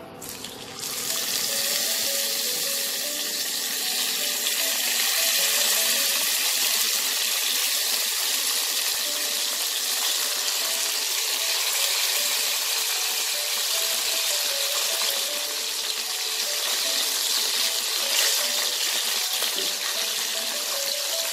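Bele (sand goby) fish frying in hot mustard oil in a wok. A steady, loud sizzle starts suddenly about a second in as the fish go into the oil.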